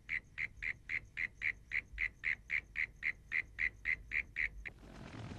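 An animal call repeated as a fast, even series of short, high notes, about four a second, that stops abruptly near the end; a low rumble then begins to swell.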